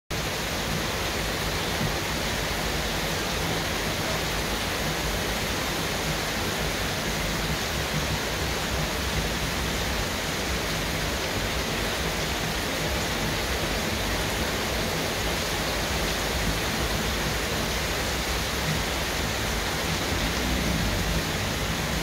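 Heavy rain pouring steadily onto foliage and tiled roofs, a dense, even hiss of downpour.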